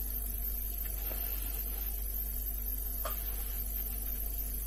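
Steady low hiss of room tone, with a faint short sip from a mug of tea about three seconds in.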